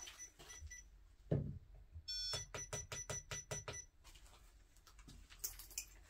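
Electronic ghost-hunting detector beeping: a few short beeps at the start, then about two seconds in a rapid run of beeps for about a second and a half that then stops, the alert it gives when it is triggered. A dull thump about a second and a half in.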